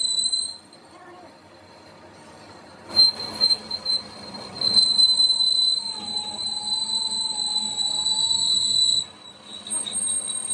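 High-pitched steady mechanical squeal, like metal being worked by a machine. It stops for about two seconds near the start, comes back, and drops out again briefly near the end.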